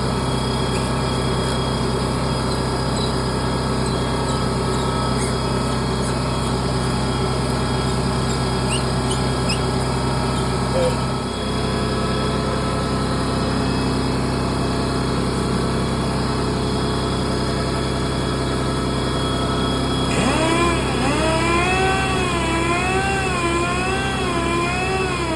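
Sander running steadily while wet-sanding a polycarbonate headlight lens at the 800-grit step. It gives a constant hum with a brief dip about eleven seconds in. For the last five seconds a wavering, up-and-down pitched tone joins in over it.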